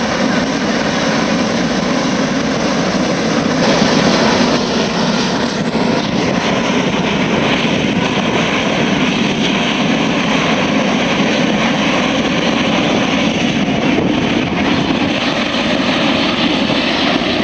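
Hot-air balloon's propane burner firing in one long, steady blast, heating the envelope with the loaded basket held down by the ground crew just before lift-off.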